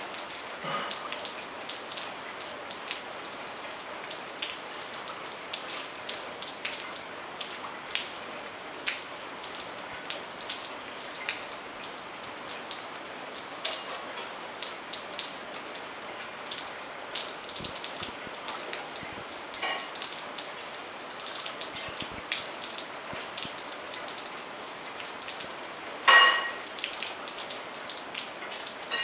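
Steady rain, with many irregular drops ticking close by. A short, louder pitched call stands out near the end, with a fainter one a few seconds before it.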